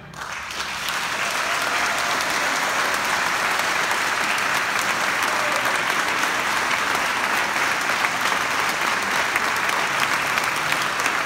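Concert audience applauding: dense, steady clapping that rises sharply at the start and holds even.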